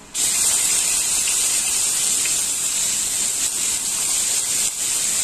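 Finely chopped onion tipped into hot oil in a kadhai, sizzling loudly the instant it lands a split second in, then going on steadily.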